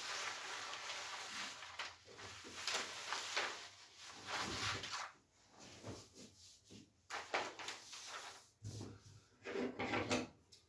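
A large sheet of pattern paper rustling and sliding across a tabletop as it is moved and smoothed flat by hand, in a series of noisy swishes. The longest comes at the start, and shorter ones follow through the rest.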